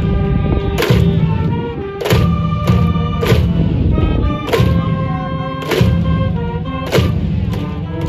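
Brass band music: held horn notes over a heavy low bass line, with a loud drum hit about once a second.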